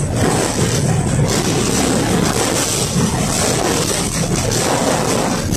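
Interior running noise of a KTM-5M3 (71-605) tram in motion: wheels on the rails and the running gear making a steady, deep noise.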